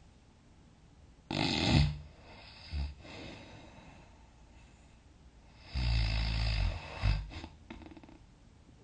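A sleeping person snoring: two big snores, the first about a second in and a longer one starting around six seconds in, each followed by a brief shorter sound.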